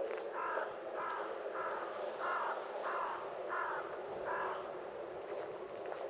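A crow cawing seven times in an even series, about one and a half caws a second.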